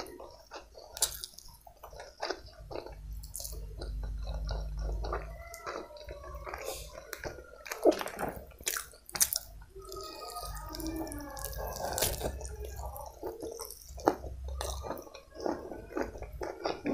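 Close-miked wet chewing and lip smacks from a mouthful of chicken biryani, with many short clicks, and the squish of fingers mixing rice and chicken on the plate.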